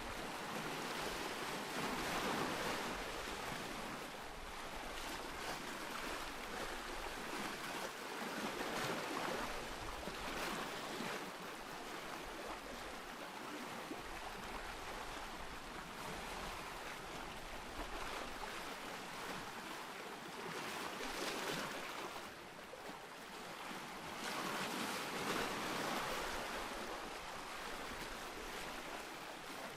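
Ocean surf: waves washing in and breaking, with a steady hiss of water that swells louder every few seconds as each wave comes in.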